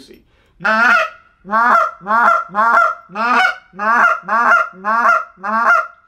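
Short-reed goose call (JT Calls SFX) blown in a run of about ten honks: one, a short pause, then a quick string of about two a second. Each honk breaks over from a low note to a high one. The caller's offhand is cupped over the end of the call to muffle it, bringing the tone a little deeper and more goosey.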